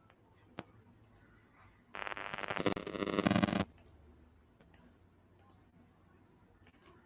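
Computer mouse clicking: a few single clicks, and about two seconds in a loud, rapid run of clicks lasting under two seconds.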